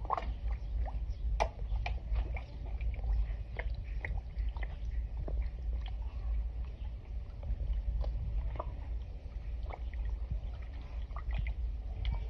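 Pond water sloshing and gurgling with irregular small splashes and slurping pops as koi break the surface, over a low steady rumble.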